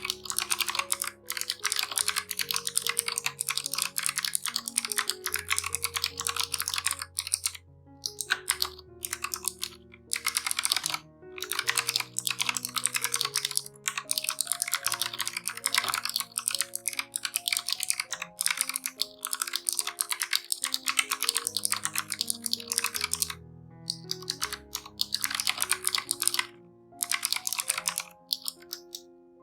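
Fast typing on a Razer Huntsman Mini 60% mechanical keyboard with clicky switches: dense runs of keystroke clicks broken by a few short pauses, over soft background music.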